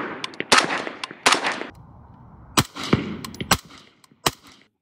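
Suppressed shots from a short-barrelled 5.56 AR rifle through a B&T Print-XH Compact titanium suppressor: several sharp single reports spaced roughly a second apart, each with a short echoing tail.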